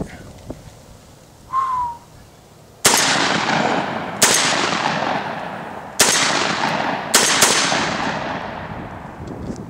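Semi-automatic Carina AS-12 shotgun firing five shots at uneven intervals, the last two in quick succession, each with a long echo trailing off. It cycles the mixed old shells without a stoppage.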